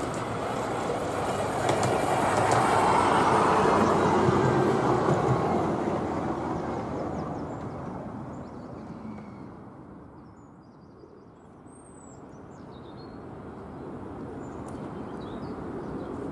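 Miniature-railway battery-electric locomotive and one carriage running past on the track: the rumble and clatter of wheels on rail grow to their loudest about three to four seconds in, then fade away. Later the rumble rises again faintly, with a few bird chirps.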